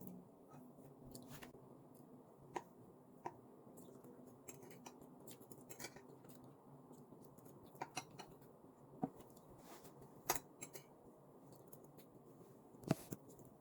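Faint, irregular sharp clicks and ticks of small objects being handled, about a dozen scattered through, the loudest near the end, over low steady room noise.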